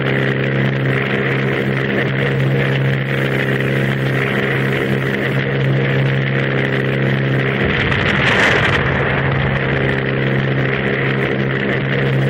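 Ju 87 Stuka dive bomber's piston engine running steadily at one pitch. About eight seconds in, a brief rush of noise with a deep rumble rises over it.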